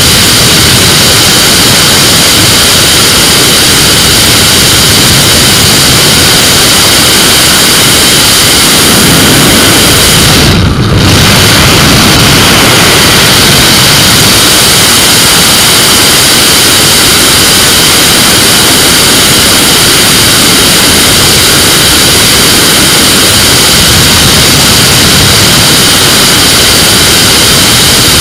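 GTR flexwing microlight in cruise flight: its engine and propeller run steadily under loud rushing air from the open cockpit, with a brief dip in the high end about ten seconds in.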